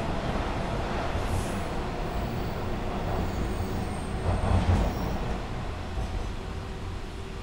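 Running noise of a Bombardier T-1 subway train, with VVVF inverter control, heard from inside the car: a steady rumble of wheels on rail, with a few louder low thumps about four and a half seconds in.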